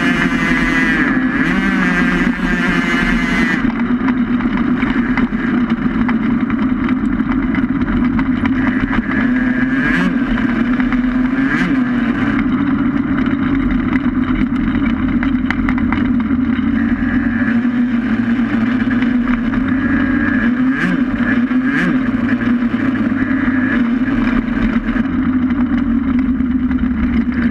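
Engine of a small race vehicle running hard and steadily at speed, heard from onboard, its pitch dipping and rising a little now and then.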